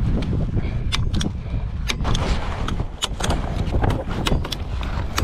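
A hand staple gun (tacker) snapping again and again as it drives staples through a roofing membrane into the timber: about a dozen sharp clacks at uneven intervals, starting about a second in.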